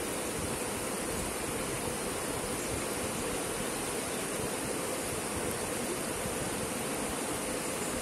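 Shallow river rapids rushing over rocks: a steady, even rush of water.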